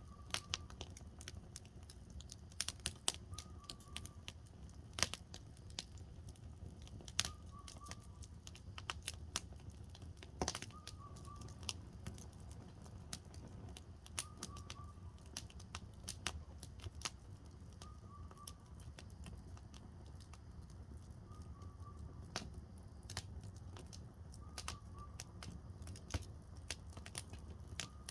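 Firewood burning in a campfire, crackling with irregular sharp pops over a low steady rush. A bird's short call repeats every two seconds or so in the background.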